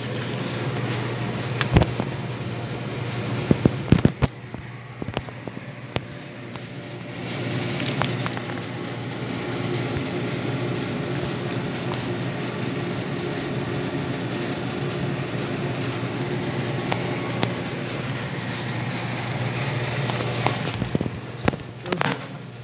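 Steady low hum with scattered sharp knocks and crackles, clustered in the first few seconds and again near the end.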